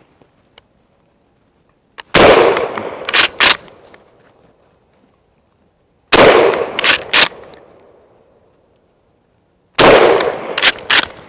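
A Mossberg 835 Ulti-Mag 12-gauge pump-action shotgun is fired three times, about four seconds apart, with light 7.5 birdshot loads. Each loud shot rings out and fades over a second or so. About a second after each shot come two sharp clicks as the pump is racked back and forward to chamber the next shell.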